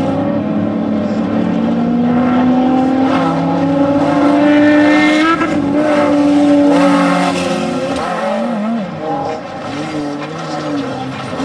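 Desert off-road race vehicle's engine accelerating, its pitch climbing steadily for about five seconds. In the last few seconds it swings up and down in quick waves as the revs rise and fall.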